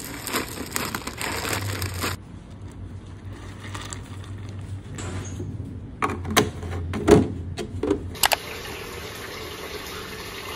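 Dry star-shaped cereal poured from a plastic pouch rattles into a ceramic bowl for about two seconds. About six seconds in come a few clicks and knocks as a plastic milk jug and its cap are handled, the loudest about seven seconds in. From about eight seconds in a tap runs steadily into a bathtub, filling it.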